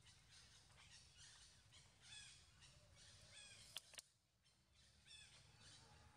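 Faint outdoor ambience with a bird calling over and over in short, high calls about a second or two apart. Two sharp clicks come just before four seconds in.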